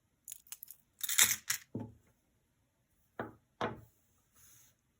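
Small metal jewelry pieces and charms clicking and clattering as they are handled and set down. A few light ticks come first, then a louder clatter about a second in, then two separate clicks a little after three seconds.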